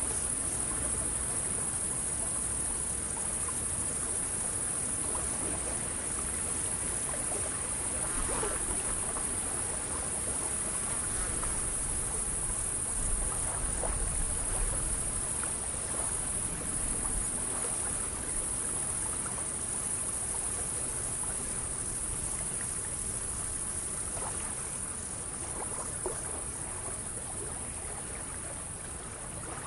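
Steady, high-pitched chorus of insects, with water lapping softly underneath.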